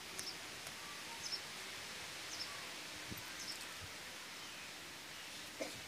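Outdoor ambience: a steady hiss with a bird chirping in short falling notes about once a second.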